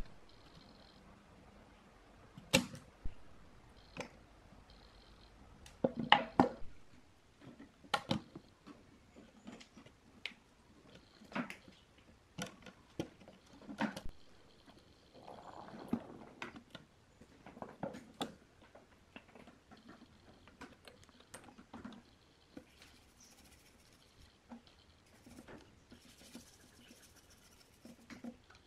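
Sharp clicks and knocks from desoldering work: a spring-loaded desoldering pump snapping, and large electrolytic capacitors being pulled off their board and set down on a wooden bench. The loudest cluster of clicks comes about six seconds in. Near the end there is a faint soft brushing.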